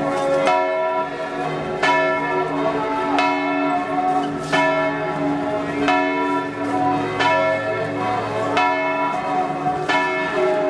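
Church bells ringing in a continuous peal. A fresh strike comes about every second and a third, and the tones hang on between strikes.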